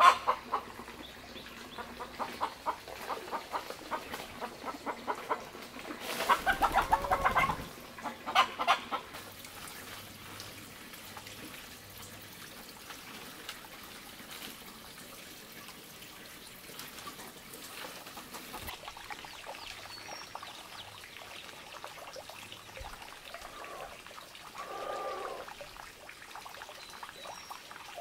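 Chickens clucking off and on, with a short call near the end. A burst of loud rustling about six seconds in.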